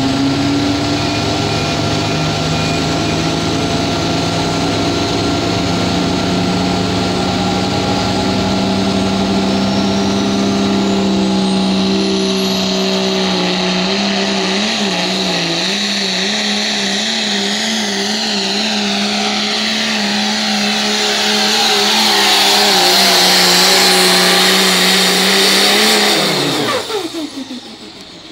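Cummins inline-six diesel in a Dodge Ram pickup pulling a sled at full throttle, held at high revs with a high whistle over the engine note. The revs waver under load partway through, and near the end they fall away steeply as the pull ends.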